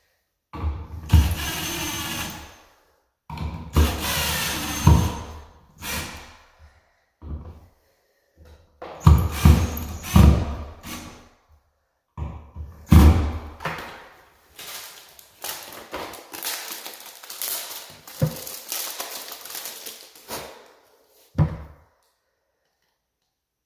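Mounting screws being driven to fasten an electrical outlet into its wall box, in several bursts of a second or two, with knocks and clicks from handling the outlet and box.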